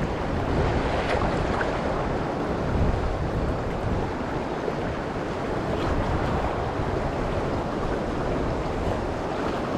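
Steady wind rumbling on the microphone, mixed with the rush and slap of choppy, wind-driven river water.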